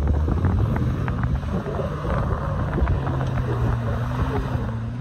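Off-road vehicle engine running, with wind buffeting the microphone and scattered crackles. A steady engine hum comes through more clearly about halfway.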